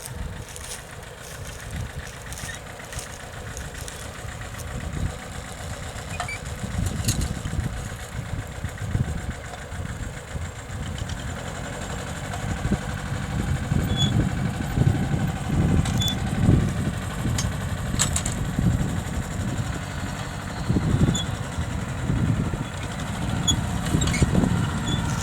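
Mitsubishi tractor engine running while ploughing, a rough low rumble that grows louder from about halfway in, with a few sharp clicks.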